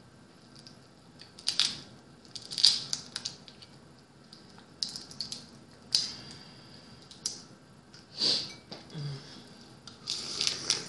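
Boiled blue crab shells being cracked and pulled apart by hand: sharp cracks and snaps a second or two apart. Near the end come wet mouth sounds as the crab meat is eaten.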